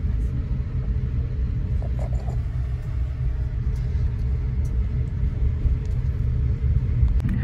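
Steady low rumble of a moving passenger train, heard from inside a sleeper carriage, with a few faint ticks over it.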